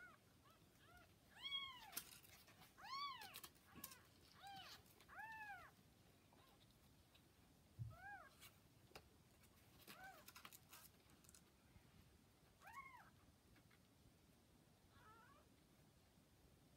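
Newborn kittens, about 40 hours old, mewing: about a dozen short, high, rising-and-falling mews, close together in the first few seconds and more spaced out later.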